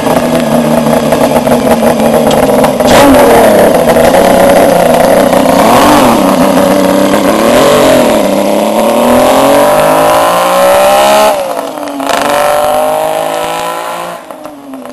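Motorcycle engine running and revving, then pulling away and accelerating: its pitch climbs, drops sharply at a gear change about eleven seconds in, climbs again, and fades as the bike rides off.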